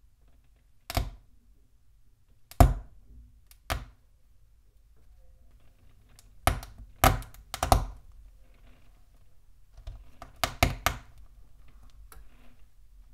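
Hard, uncooked pasta snapping inside a folded kitchen towel as hands press down on it: foley for bones cracking. There are about ten sharp cracks, some single and some in quick clusters of two or three.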